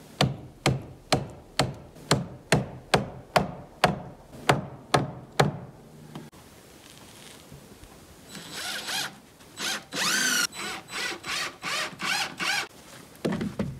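Hammer blows at a steady pace of about two a second, stopping about five and a half seconds in. After a pause, a power drill or driver runs in a string of short bursts, and a low thump comes near the end.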